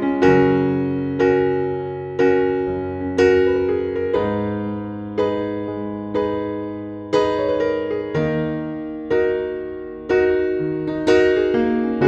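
Background music on electric piano: chords struck about once a second, each fading before the next.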